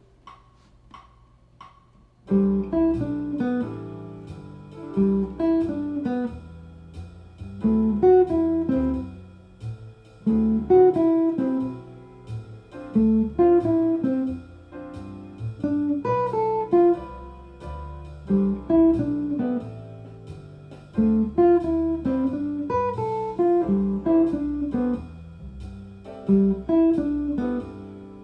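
Jazz guitar playing descending pivot-arpeggio patterns, single picked notes falling in repeated phrases over a play-along backing track with low bass notes. The guitar comes in about two seconds in, after a few soft ticks.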